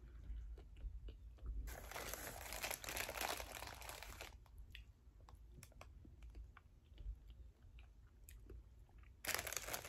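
A person chewing a soft chocolate cake pop close to the microphone, with small mouth clicks throughout. A rustling noise comes in about two seconds in and lasts a couple of seconds, and starts again near the end.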